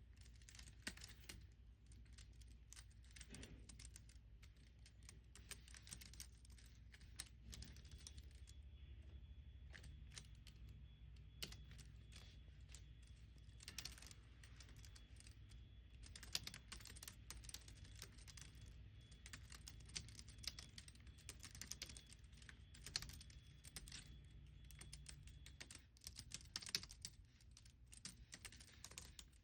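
Quiet typing on a computer keyboard: irregular runs of keystrokes, with a few louder key hits, over a steady low hum.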